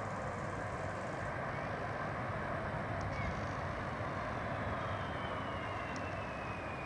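Airbus A330 airliner's jet engines on short final approach, a steady rumble with a faint high whine that slowly falls in pitch in the second half.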